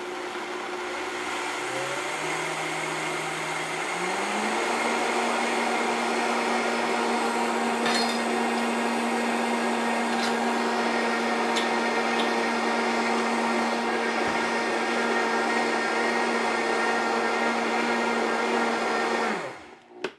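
Vitamix blender grinding dry oats and millet into flour in its basic jar. The motor speed is stepped up over the first four seconds, runs steady at full speed with a few sharp ticks from the hard grain, then winds down and stops about a second before the end.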